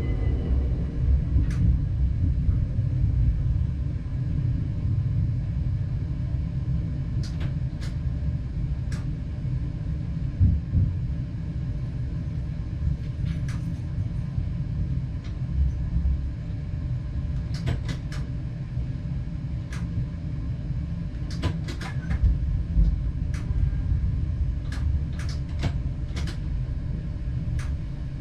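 Diesel multiple unit standing with its engine running: a steady low rumble, with short sharp clicks at irregular moments throughout.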